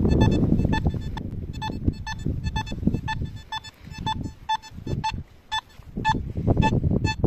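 Nokta Makro Simplex metal detector giving short, repeated beeps at one pitch as its coil sweeps over the ground, the signal of a metal target. A low rumble runs underneath and is loudest near the start.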